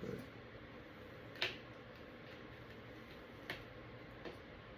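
Three light, sharp clicks spaced out over a faint steady hum; the first, about a second and a half in, is the loudest.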